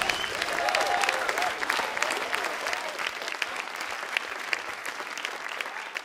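Audience applauding, with a few voices calling out in the first second or two. The clapping fades away steadily.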